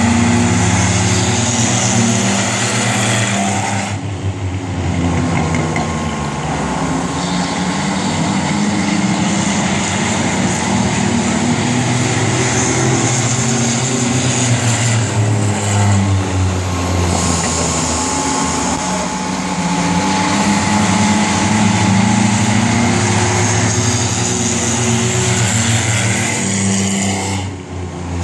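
V6 banger race cars running laps on an oval track, their engines rising and falling in pitch as the cars come by and move away, with the overall sound dipping briefly about four seconds in and again just before the end.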